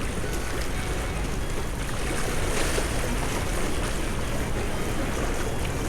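Steady wind rumbling on the microphone together with the wash of sea waves at the shore.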